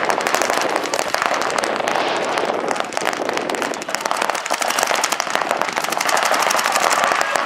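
Paintball markers firing in rapid, continuous volleys, a dense popping of many shots a second.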